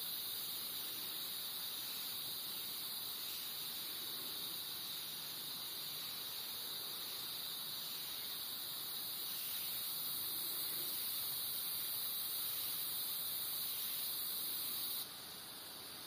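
Rainforest insect chorus: a steady, shrill, high-pitched drone with no breaks. It swells slightly about ten seconds in and cuts off suddenly near the end.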